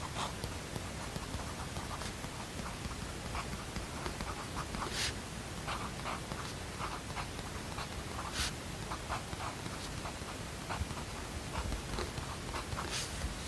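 Steady white-noise hiss with irregular short scratches of writing on paper, several a second, a few of them sharper.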